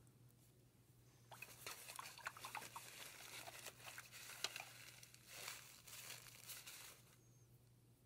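Faint rustling and crinkling, a run of small crackles and clicks starting about a second in and stopping about a second before the end, over a steady low hum.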